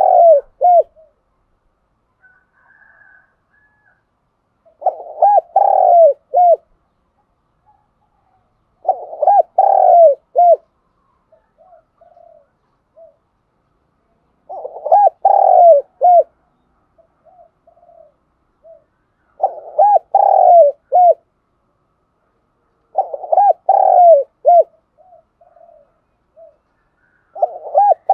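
Spotted dove cooing its song over and over: a phrase of several quick, low coos about every four to five seconds, each followed by a few softer notes. This is the calling song of a caged decoy dove, used to draw in wild doves.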